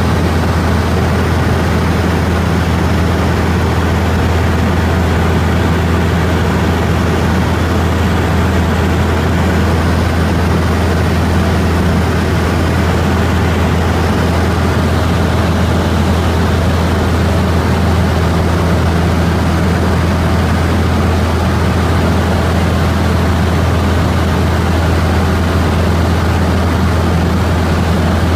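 Cabin noise of a small propeller aircraft in cruise: a loud, steady low engine and propeller drone over rushing air, holding one pitch without change.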